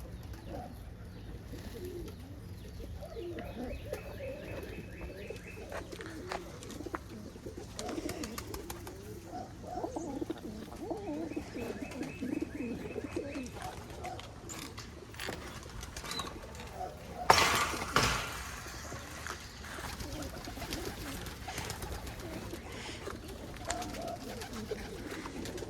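Domestic pigeons cooing in a loft, warbling calls overlapping through the whole stretch. About two-thirds of the way in there is one loud, noisy rustle lasting about a second.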